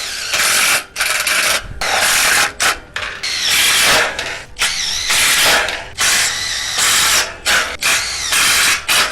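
Cordless drill driving screws through a steel bracket into a steel shed frame, in about eight short runs in quick succession, the motor's pitch bending as each screw bites.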